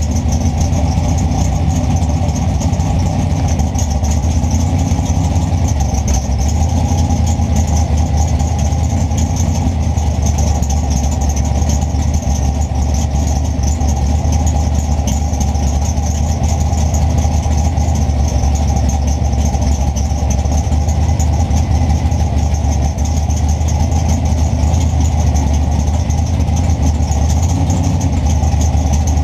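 Morgan & Sons big-block Chevrolet race engine idling steadily, a constant low rumble with no revving.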